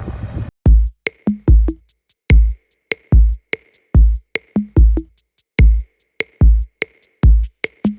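Background music: a drum-machine beat with deep kick drums that drop in pitch, and sharp clicking percussion between them. It cuts in suddenly about half a second in, replacing a steady rushing noise.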